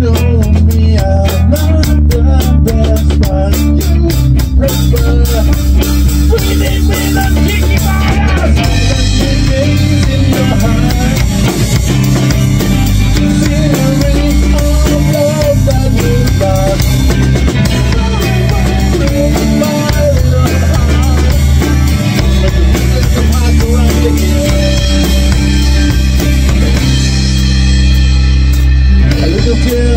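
Rock band playing an instrumental passage on drum kit, electric guitar and acoustic guitar. The cymbals come in heavier about eight seconds in.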